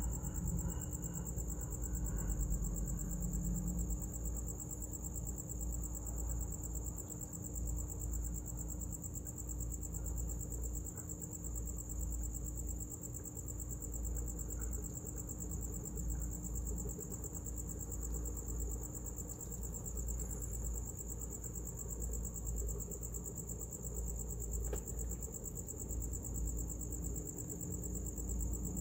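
Crickets calling steadily in a high, unbroken chorus, over a low rumble.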